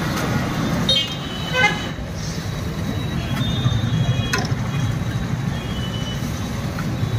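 Steady road-traffic rumble with several short vehicle horn toots. A single sharp crack a little past four seconds: an egg being knocked open on the edge of an iron griddle.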